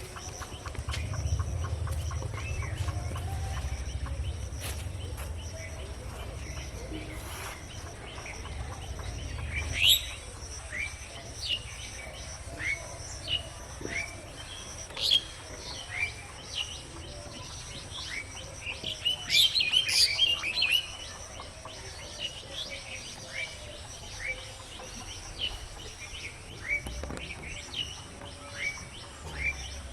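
Birds chirping: short rising chirps repeated about once a second, with a busier flurry of calls about two-thirds of the way through. A low rumble runs under them during the first third.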